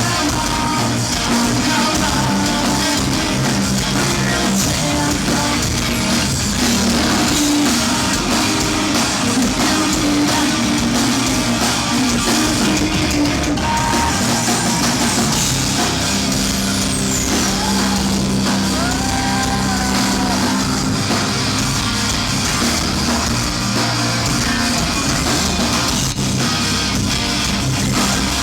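Live rock band playing loud: distorted electric guitars and drum kit, with some singing.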